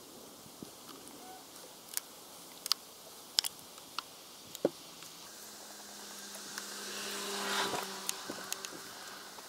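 Water-pump pliers clicking against metal hose clamps on the intercooler hoses: several short, sharp metallic clicks in the first half. From about halfway a steady buzzing hum swells and fades again.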